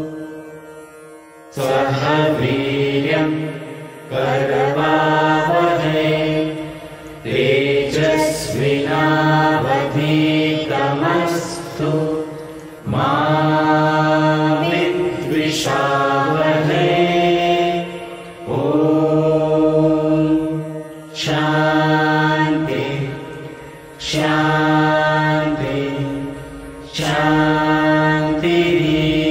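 A group of men and women chanting a Hindu prayer mantra together. Long held notes come in phrases of a few seconds, with short breaks between them, after a pause at the start.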